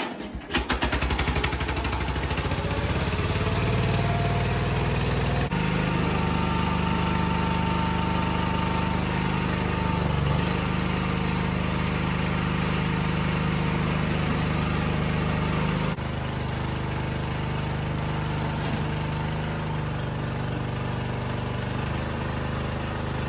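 Cub Cadet 129 Hydro's 12 horsepower Kohler single-cylinder engine started with the key, catching within about a second and then running steadily. Its speed rises over the first few seconds and then holds. The sound drops slightly about two-thirds of the way through.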